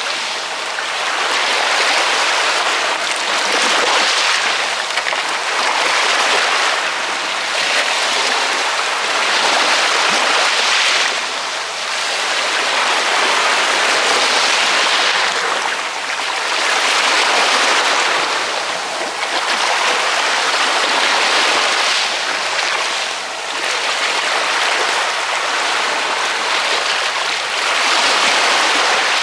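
Ocean waves washing in, a continuous hiss of surf that swells and eases every few seconds as each wave breaks and draws back.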